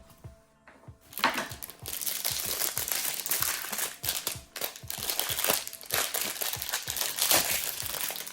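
Plastic packaging crinkling and crackling with small clicks as it is handled, starting about a second in.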